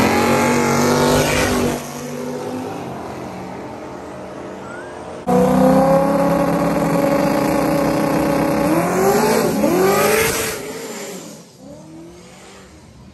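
Race car engines at a drag strip: loud engine noise that drops away about two seconds in, returns suddenly and loud about five seconds in as cars run down the track, rises and falls in pitch as they pass, and fades out near the end.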